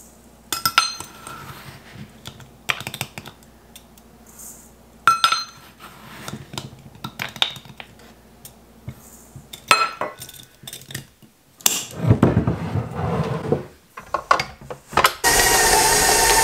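A metal measuring cup clinks against a glass jar and a stainless steel mixing bowl as sugar is scooped and poured in: several separate clinks with a short ring. About fifteen seconds in, a stand mixer starts and runs loud and steady with a whine, its flat beater creaming butter and sugar.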